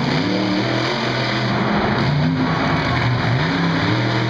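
Monster truck's supercharged V8 engine revving, its pitch rising and falling repeatedly as the throttle is worked, over a steady din of engine noise.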